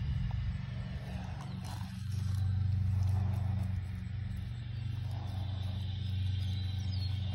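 A steady low mechanical hum, like a running engine, that swells louder for a second or so about two seconds in.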